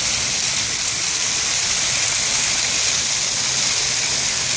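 Splash-pad fountain jets spraying up and falling back onto wet paving: a steady rush of splashing water.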